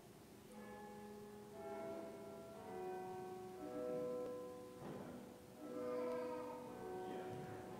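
Faint, slow instrumental music of long held notes that change about once a second.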